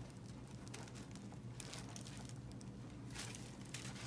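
Clear plastic packaging crinkling in fits and starts as it is handled and worked open, over a faint steady low hum.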